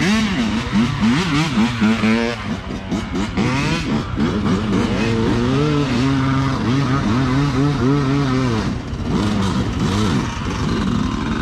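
Honda Trail 125's single-cylinder four-stroke engine on its stock exhaust, revved up and down in repeated quick throttle blips, with a steadier pull through the middle.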